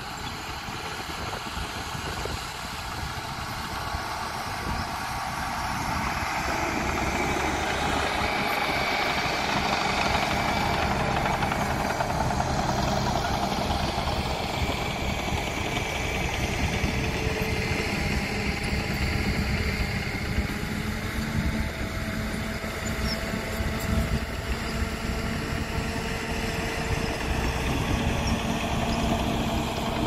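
A loaded dump truck's diesel engine running, getting louder over the first several seconds as the truck comes closer, then steady.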